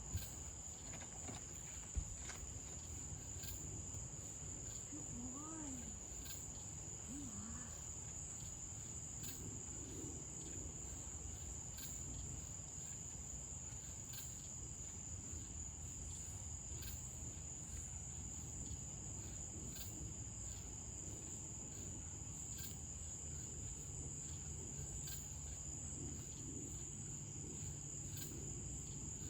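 Night insects trilling in a continuous high-pitched chorus, with faint pulses about once a second. There are a few faint low calls a few seconds in, and a short knock about two seconds in.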